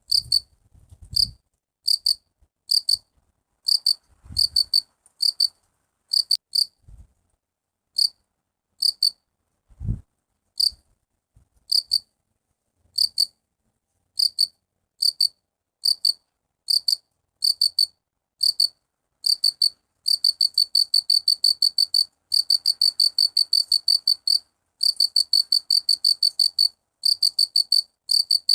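Field cricket (Gryllidae) chirping: short, high-pitched chirps at uneven spacing that turn, about two-thirds of the way in, into a fast, steady run of about five pulses a second with a couple of brief breaks. A few faint low thuds sound in the first half.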